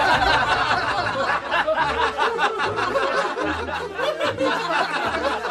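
Several people laughing and chattering, their voices overlapping.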